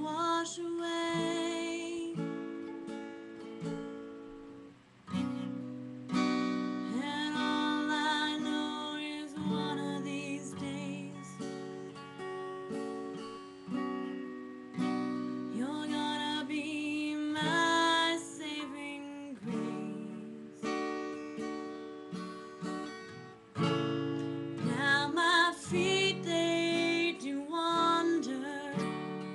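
Acoustic guitar strummed in sustained chords, with a voice singing over it in several phrases.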